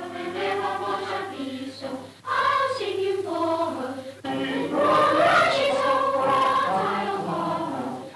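A choir singing a slow melody in held notes, which breaks off abruptly and starts again twice, about two and four seconds in.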